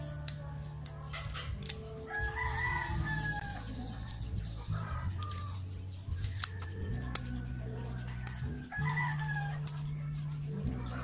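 A rooster crowing twice, about six seconds apart, each crow roughly a second and a half long and falling in pitch, over soft low background music. Light clicks and rustling of paper slot insulation being handled on an electric motor armature.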